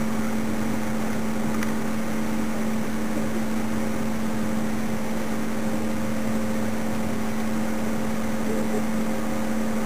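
A motor running steadily, giving a constant low drone with a hum that does not change pitch.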